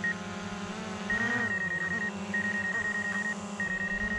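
Snowbike engine running at steady revs, with a brief rise and fall in pitch about a second in. A high beeping tone repeats in pulses about a second long throughout.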